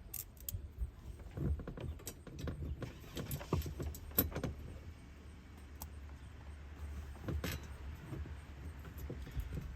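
Small metal hardware clinking and rattling as it is handled, with scattered sharp clicks and knocks: bolts and spacer washers being sorted and fitted.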